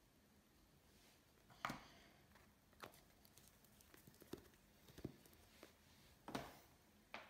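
Faint handling noise at a fly-tying bench: about six short taps and clicks, spread over several seconds, as a small glue bottle and tools are moved and set down. The loudest knocks come a little under two seconds in and again just past six seconds.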